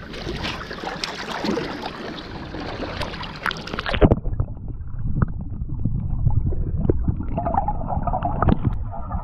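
Sea wash and wind on the microphone with handling clicks. About four seconds in, the sound turns suddenly muffled and low, with gurgling and dull knocks as the microphone goes under the seawater.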